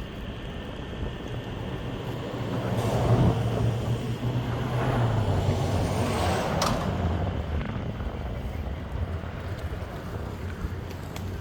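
Meepo Hurricane electric skateboard riding at speed: honeycomb wheels rolling on pavement with a steady low motor hum. Wind rushes on the microphone, and the noise swells louder for a few seconds in the middle, with a sharp click near the peak.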